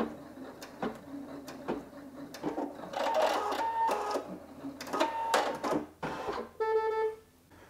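Singer EM9305 embroidery machine pausing between thread colours: scattered clicks and short motor whirs as the hoop repositions. Then a single half-second electronic beep near the end, the machine's signal that the colour is finished and the next thread is needed.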